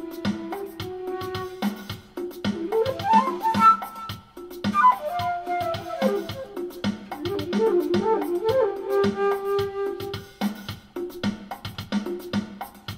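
Flute melody played through a Zoom 505-II effects pedal, its harmonizer and reverb adding parallel notes, with a quick rising run about three seconds in and a falling one near five seconds. A steady backing beat of about three strokes a second runs under it.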